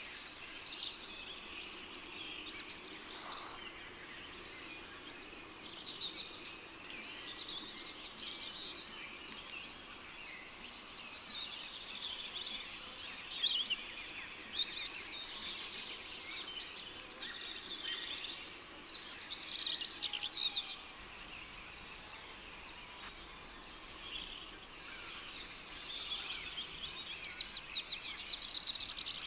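A cricket chirping in steady, evenly spaced high pulses, with birds calling now and then over it in short sweeping phrases.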